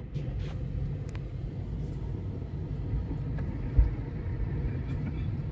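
Steady low rumble of a car's engine and tyres heard from inside the moving car, with a brief low thump a little under four seconds in.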